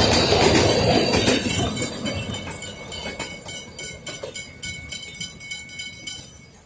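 Puffing Billy narrow-gauge train rolling past and receding, its wheels clicking over the rail joints about four times a second with a thin high squeal, the sound fading steadily away.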